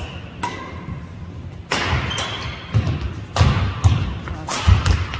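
Badminton doubles rally: several sharp cracks of rackets striking the shuttlecock, with players' shoes thudding on the wooden court between shots.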